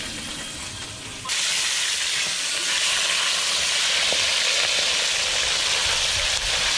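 Whole fish frying in a wok of hot oil: a steady sizzle that comes in suddenly and loud about a second in.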